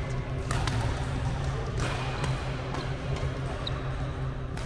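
Badminton rackets striking shuttlecocks: a few sharp, echoing hits over a steady low hum from the hall.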